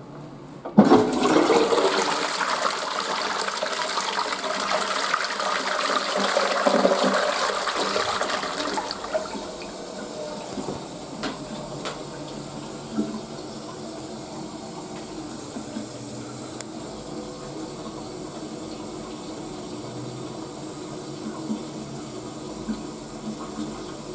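Toilet flushing: a sudden loud rush of water about a second in that lasts about eight seconds, then a quieter steady run of water for the rest of the time.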